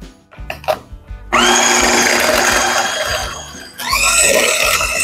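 Electric hand mixer switched on about a second in, its motor whirring up to speed as the beaters work through cookie dough. It drops off briefly a little past three seconds and spins up again near four.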